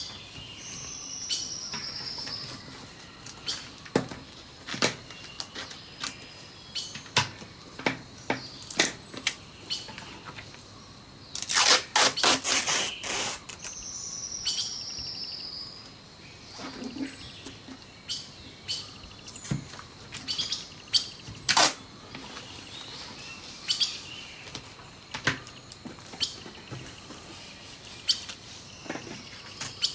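Birdsong from a nature-sounds background, with a high falling whistle twice, over scattered sharp clicks and crinkles of paper and clear sticky tape being handled. About twelve seconds in comes the loudest sound, a rasping stretch of about two seconds, typical of tape being pulled off the roll.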